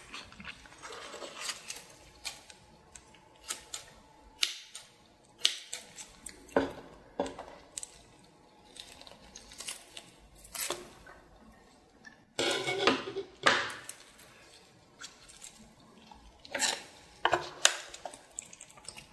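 Kitchen scissors cutting through a sauce-glazed cooked octopus: a series of short snips and blade clicks, louder in two bursts about twelve and seventeen seconds in.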